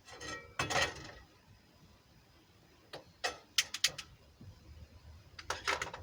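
Kitchen items being handled in a small galley: a few short bursts of clinks, knocks and bumps, about a second in, around the middle and near the end.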